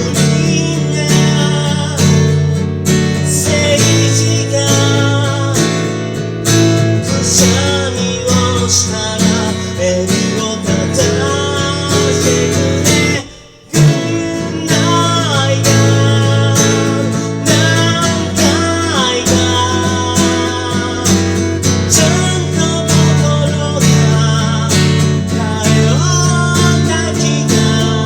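Acoustic guitar strummed with a voice singing over it. Everything stops for a moment about halfway through, then the guitar and voice start again.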